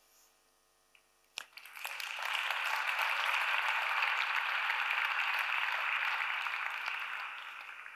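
Audience applauding: it starts about a second and a half in, builds up, holds steady, and tapers off near the end.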